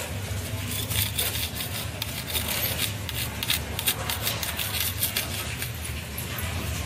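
Fine scraping, rubbing and clicking of fingers and a small modelling tool working a miniature clay idol, in quick irregular strokes over a steady low hum.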